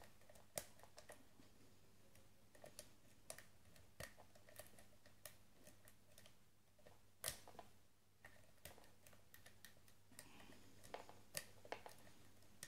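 Faint, irregular small metallic clicks and ticks of a lock pick working the pins of a Wilka 5-pin euro cylinder under heavy tension, with the core in a false set.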